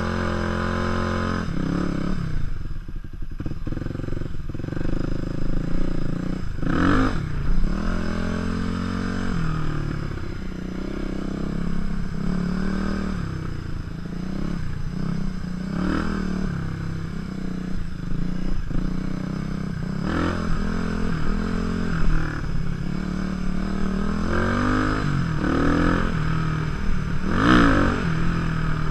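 Supermoto motorcycle engine heard from the rider's seat, revving up and falling back again and again as the throttle is opened and closed on sand and a dirt trail. There is a few brief bumps along the way.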